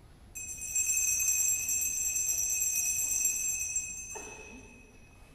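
Altar bells (Sanctus bells) shaken for about three and a half seconds, then ringing out and fading. The ringing marks the elevation of the chalice just after the words of consecration.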